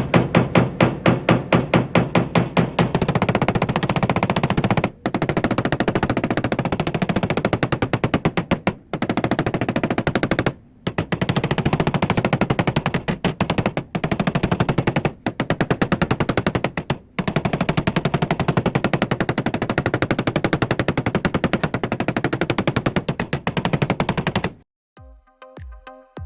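Rapid, machine-gun-like hammering on a steel car door panel, in long runs broken by brief pauses, typical of a pneumatic tap-down or blending hammer used in paintless dent repair. It stops shortly before the end, and music follows.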